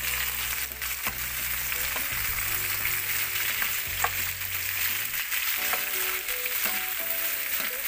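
Strips of squash, carrot and string beans sizzling in hot oil in a frying pan as they are stir-fried, with a wooden spatula clicking against the pan now and then.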